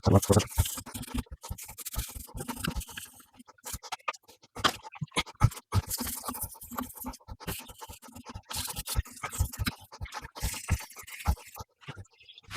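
Hand brush scrubbing greasy engine parts in degreaser, in quick, irregular strokes.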